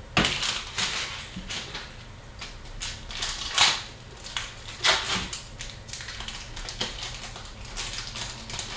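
Hockey card packs being opened and the cards handled: irregular rustling and crinkling of pack wrappers and card stock, with sharper crackles about three and a half and five seconds in.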